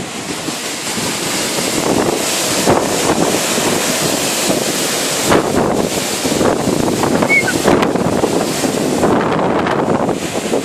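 Storm-force wind gusting hard, a loud continuous rush that swells and eases.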